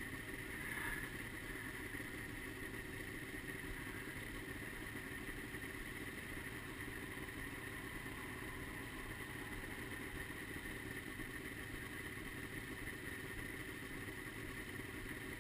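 Snowmobile engines idling steadily.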